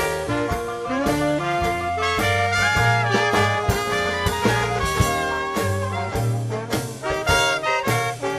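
Dixieland jazz band playing a blues, with brass horns carrying the melody over a steady bass line and a drum beat.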